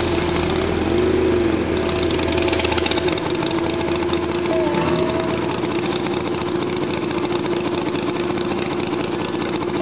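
Harley-Davidson motorcycle engine idling steadily.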